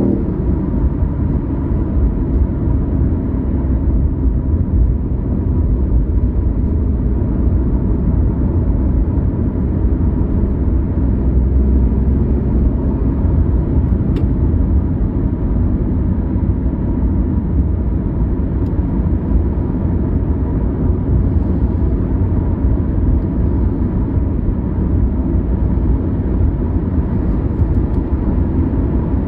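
BMW i8, with its turbocharged three-cylinder hybrid drivetrain, cruising at a steady speed. Its engine and tyres make an even low rumble that stays level throughout.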